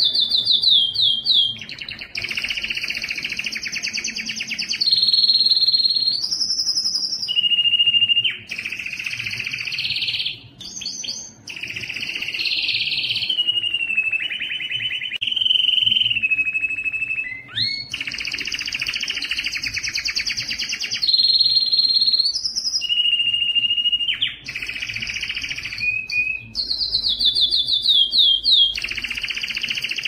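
Canary singing a long, nearly unbroken song of rapid trills and held whistled notes, with quick falling runs of notes near the start and the end and a couple of brief pauses.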